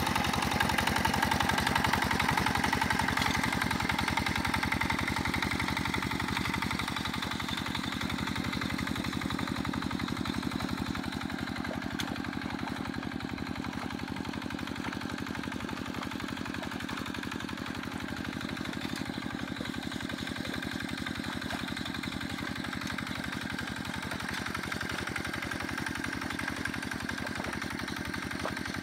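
Single-cylinder diesel engine of a two-wheel walking tractor running steadily under load as it pulls a harrow through a flooded rice paddy. It is louder for the first several seconds, then grows a little quieter as the tractor moves away.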